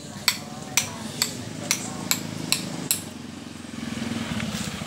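Seven sharp metallic clicks with a short ring, about two a second, that stop about three seconds in. Under them runs a steady low engine hum, which grows louder near the end.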